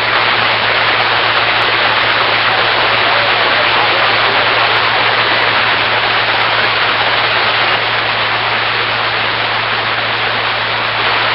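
A steady rushing noise with a constant low hum under it, unchanging in level.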